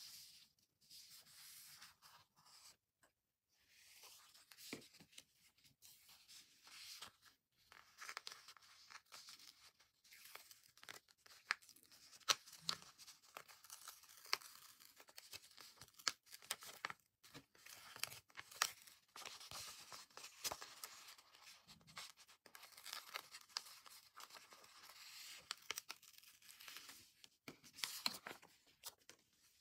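A large paper sticker being peeled slowly off its backing sheet: a quiet, crackling tear of adhesive letting go, with the sheets rustling as they are handled and many small sharp clicks.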